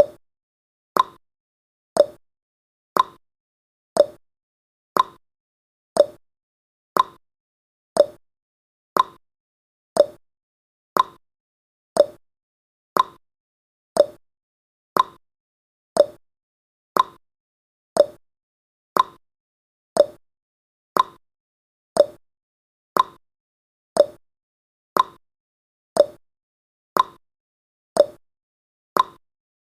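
Countdown timer tick sound effect: one short, clipped tick every second, keeping an even beat.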